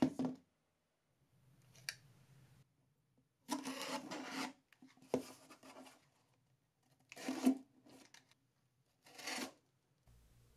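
Box cutter slicing through packing tape on a cardboard box in about four short scraping strokes, with a few light clicks as the box and knife are handled.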